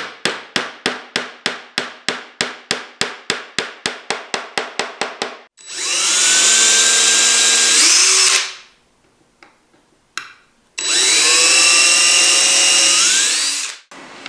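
Claw hammer tapping a small wooden block in quick, even light blows, about five a second for some five seconds. Then a cordless drill drives screws into the blocks in two runs of about three seconds each, its whine gliding up in pitch.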